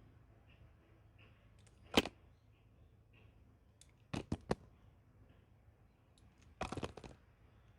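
A blade cutting a bar of strawberry pulp soap, giving crisp clicking cuts: one sharp one about two seconds in, three quick ones around the middle, and a crackly run of small cracks near the end.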